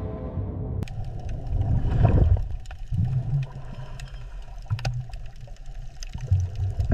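Underwater ambience: a steady low rumble with scattered bubbling clicks and gurgles, swelling louder about two seconds in.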